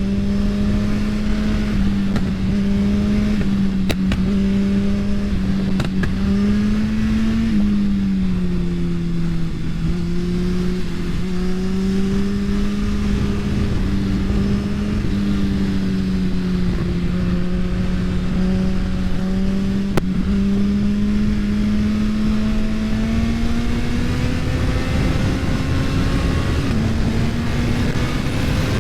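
Suzuki Hayabusa's inline-four engine running hard at steady high revs, heard from onboard over wind rush. Its pitch dips around eight seconds in, then climbs steadily through the last ten seconds or so as the bike accelerates.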